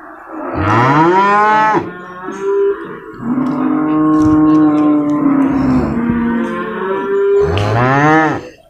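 Young water buffalo calling three times, loud and close: a short call that rises and then drops, a long steady call, and another short call that rises and then drops near the end.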